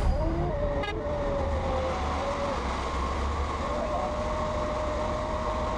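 Propane clamp-truck forklift running as it drives: a low engine rumble under a thin, steady, slightly wavering whine, with a brief rattle about a second in.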